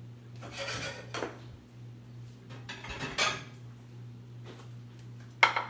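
Dishes and utensils clattering as a bowl of pasta is handled at the stove: two spells of scraping and clinking, then a sharp clink near the end, over a steady low hum.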